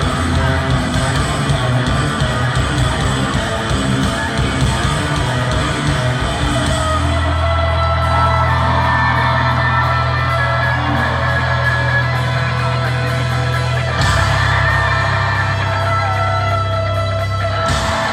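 A live rock band plays a loud, guitar-driven song with electric guitars, bass and drums. About seven seconds in, the pounding low end gives way to steady, held low notes.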